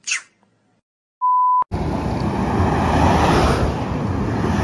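A brief falling swish, then a loud, steady electronic beep lasting about half a second, a little over a second in, which ends in a click. After it, from just under two seconds in, a steady roar of wind on the microphone mixed with road traffic.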